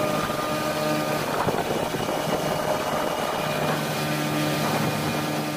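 Motorboat engine running steadily, with wind and water rushing past. The engine's drone fades under the rush for a couple of seconds in the middle, then comes back.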